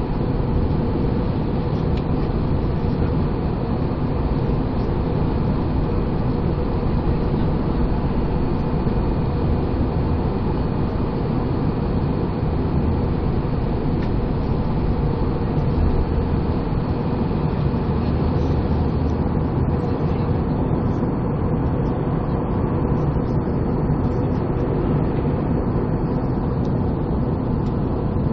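Jet airliner cabin noise in flight, from a window seat beside the wing-mounted engine: a steady drone of the engines and rushing air, with a few faint steady tones above it.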